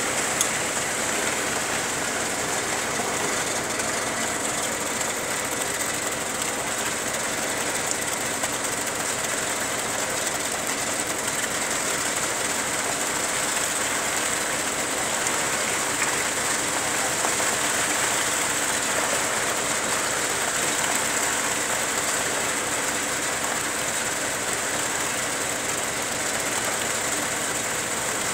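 A small engine running steadily with a fast, even low chugging, under a steady high hiss.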